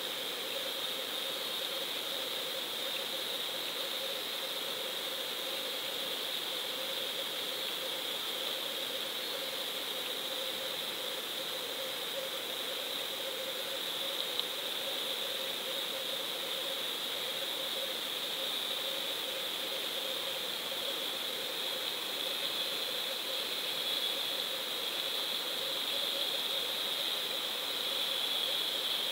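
Steady underwater hiss with a low hum and a high whine held at one pitch, as picked up by a submerged GoPro in its waterproof housing; one faint click about halfway through.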